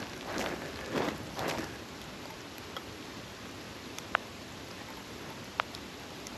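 Footsteps crunching through snow, about three steps in the first couple of seconds, then they stop. After that comes a steady hiss with a few isolated sharp ticks.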